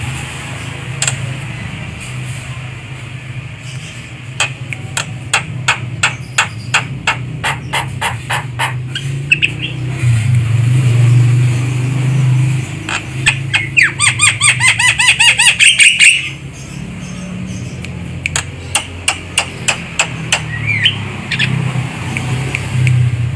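Javan myna calling: runs of quick, sharp clicking notes, with a loud burst of harsh chattering about two-thirds of the way through. A steady low hum runs underneath.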